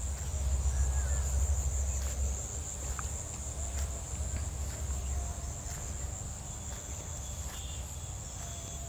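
Steady high-pitched insect trill, over a low rumble that fades after about two seconds, with a few faint taps.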